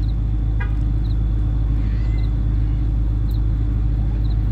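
Steady low outdoor rumble, like wind on the microphone or distant traffic, holding an even level throughout.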